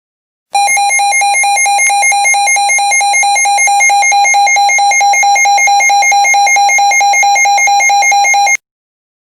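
Emergency Alert System attention tone announcing an emergency alert broadcast. It is a loud, high, rapidly warbling alarm tone lasting about eight seconds, starting about half a second in and cutting off suddenly.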